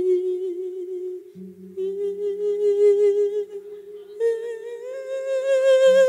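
A male voice singing long, drawn-out wordless notes with a wavering vibrato, in the melismatic style of an Isan thet lae chanted sermon. The pitch steps up near the end, over a steady low accompanying note that comes in about a second in.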